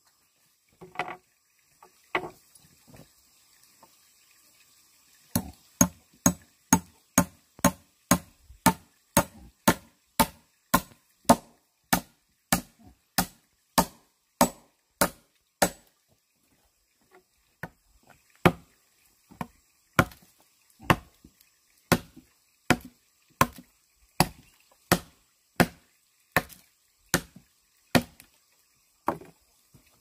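Repeated chopping with a blade into wood. After a few scattered knocks, the sharp strikes come quickly and evenly, about two or three a second, for around ten seconds. After a short pause they resume at a slower pace, roughly one every two-thirds of a second.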